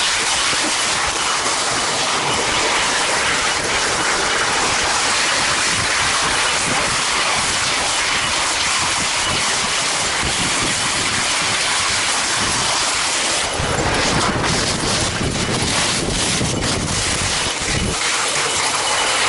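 Kicksled runners scraping and hissing steadily over packed snow as dogs pull the sled along. From about two-thirds of the way in, heavier rumbling and knocking, as from the sled going over rougher snow, lasts a few seconds.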